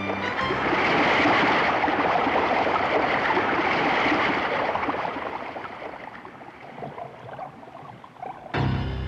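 Underwater sound effect of rushing, bubbling water, loudest in the first few seconds and fading away. Near the end a low, ominous music chord comes in suddenly.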